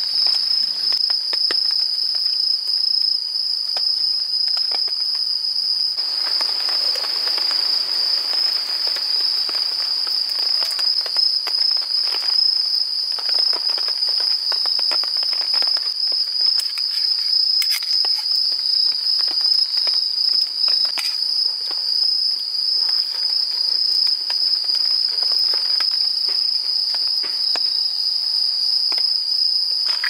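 Crickets trilling in one steady, unbroken high-pitched chorus, with light scattered clicks over it.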